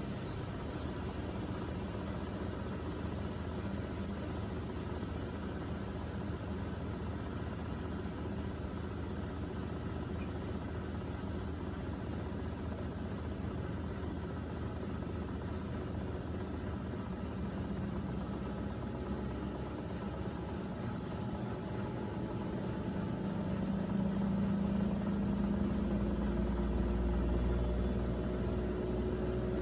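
Miele Navitronic W3985 washing machine running, with a steady motor and drum hum. About 24 seconds in, the low hum grows louder and a steadier tone comes in.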